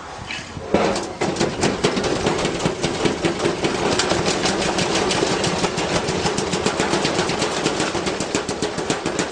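Washing machine starting to spin with a heavy object loaded in its drum: a loud bang just under a second in, then rapid, continuous banging, several knocks a second, over the machine's running noise as the load slams around inside.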